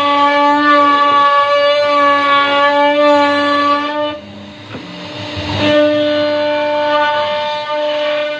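CNC router spindle running at a steady high speed, a constant whine, while it carves a wooden door panel. The whine drops out briefly about four seconds in, giving way to a quieter rushing noise, then comes back at the same pitch.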